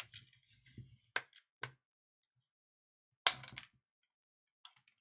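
Small parts of a tablet being handled and pried during disassembly: a light scraping, then two sharp clicks about a second in and a louder click a little after three seconds.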